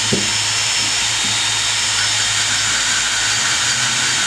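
Cordless drill running steadily, spinning a valve against its seat in a 1977 Honda CT90 cylinder head with valve-grinding compound: the valve is being lapped (relapped) to reseat it.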